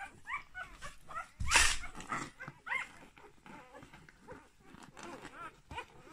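Newborn husky puppies squeaking and whimpering in a stream of short, high calls that rise and fall in pitch. About a second and a half in there is one brief, loud rustle.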